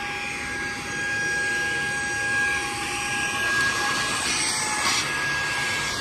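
Saker cordless mini handheld vacuum cleaner running with its extension nozzle attached: a steady high motor whine over the rush of air being drawn in.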